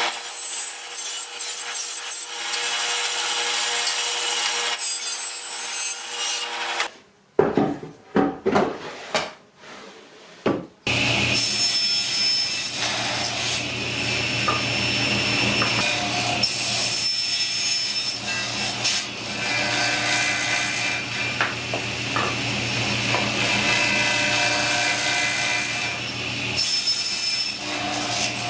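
A homemade table saw running and cutting wood, a steady motor hum under the hiss of the blade, first through plywood and then through thin strips pushed on a crosscut sled. About seven seconds in, the saw noise breaks off for about four seconds, and a few knocks of wood being handled are heard before it starts again.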